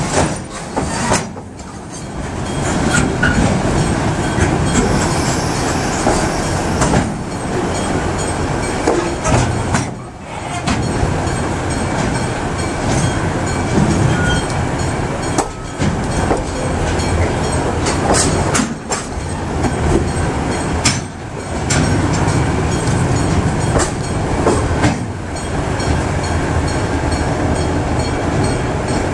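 Long freight train of container wagons rolling past, wheels clattering over the rails with a continuous rumble that briefly dips every few seconds.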